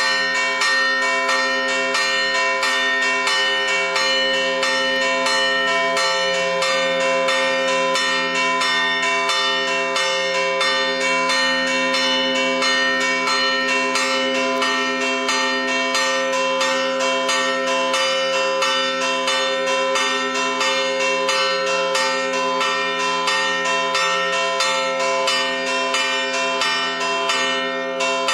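Two church bells, the two largest of the tower's three electrified bells (tuned E3 and A3), struck in a rapid, even scampanìo of about three strokes a second, their tones ringing on over one another without a break. It is the festive Sunday peal, the last signal before Mass begins.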